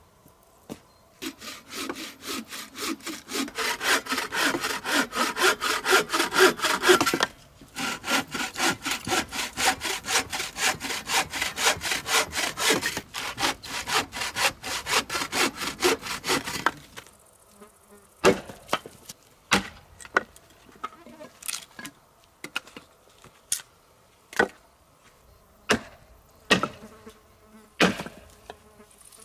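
A 60 cm bow saw cutting through a log with quick, even strokes, a short pause about seven seconds in, the sawing stopping a little over halfway through. After that, separate sharp cracks and knocks of wood, one every second or so.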